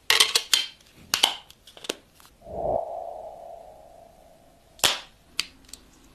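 Sharp plastic clicks and snaps from a clear hard case being fitted onto a smartphone: a quick cluster at the start, more a second later, and three near the end. In the middle a single tone swoops up and slowly fades over about two seconds.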